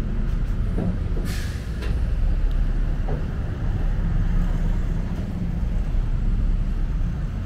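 Steady low rumble of heavy city road traffic, with a brief hiss about a second in.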